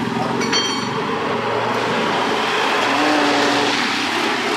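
Road traffic passing close by: the steady noise of a vehicle going past, with a brief high squeal about half a second in and a short low tone a little after three seconds.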